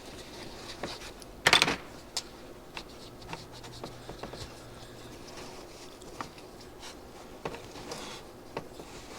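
Light clicks, taps and rubbing of small carburetor parts and hand tools being handled on a workbench while a small go-kart carburetor is cleaned, with one louder, short noisy burst about one and a half seconds in.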